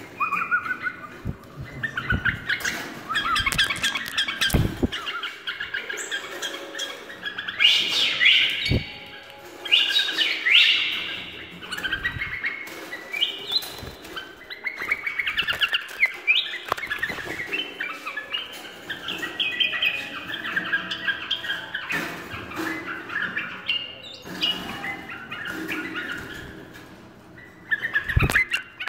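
Pet bulbuls chirping and calling in quick runs of notes, loudest about a third of the way in, with a few sharp knocks from the cage and handling.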